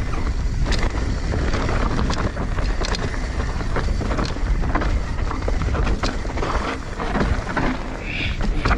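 Mountain bike ridden on a rough downhill trail: wind buffeting the microphone, with a rattle of short clicks and knocks from the bike over the ground.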